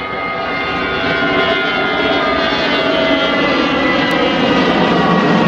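Airbus A320 jet engines heard from inside the cabin: a steady rushing hum with several whining tones, swelling in level over the first second.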